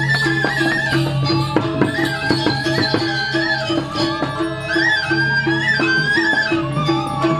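Balinese gamelan music for the Barong dance. A high, sliding melody runs over a steady pulse of short repeated notes and a sustained low tone, with a cluster of sharp percussive strokes about two seconds in.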